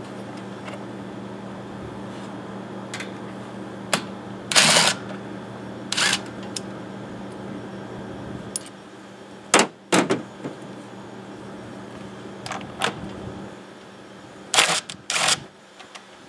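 Cordless drill/driver running in about five short bursts, backing out fasteners on the engine, with small sharp clicks in between.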